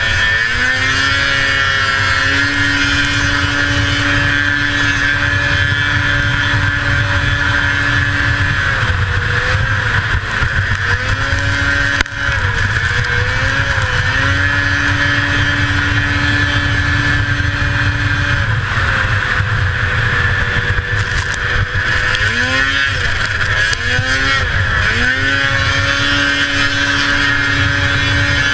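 A 1981 Arctic Cat El Tigre 6000's 500cc two-stroke engine running hard at racing speed. Its pitch holds steady for long stretches and dips and climbs back several times, briefly around a third of the way in, again near the middle, and in quick succession later on.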